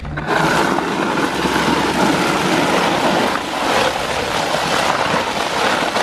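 Snow shovel scraping along an asphalt driveway, pushing a load of broken ice and slush in one continuous scrape.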